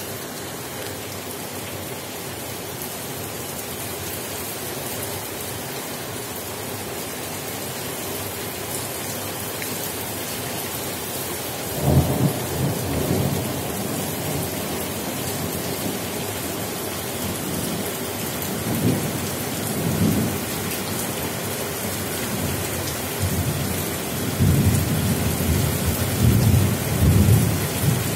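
Heavy rain falling steadily in a torrential downpour. Thunder breaks suddenly about twelve seconds in and rumbles on, with louder rolls near the end.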